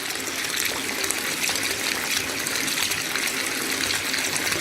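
Water running steadily, an even rushing hiss.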